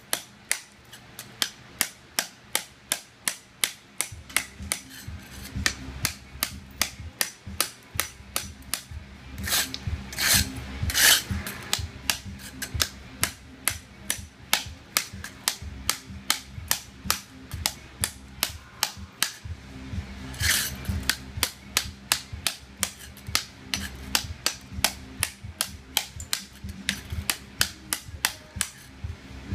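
Claw hammer striking a chisel held against ceramic tile to chip it off, in a steady run of sharp metal-on-metal blows at about two to three a second, with a few louder, rougher bursts about a third of the way in and again about two-thirds through.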